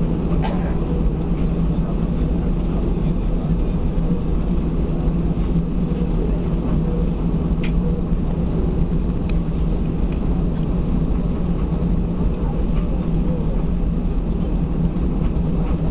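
Airbus A320 cabin noise while taxiing: the steady low drone of the engines at idle, heard through the cabin wall, with a couple of faint clicks about halfway through.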